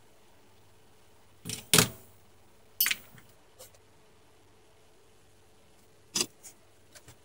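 A few sharp handling clicks and knocks: a pair, the loudest, a little over a second and a half in, another near three seconds, and more around six to seven seconds, over a faint steady hum.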